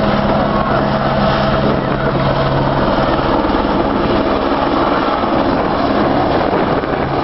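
Helicopter's turbine and rotor running steadily, with a steady hum that fades about three seconds in.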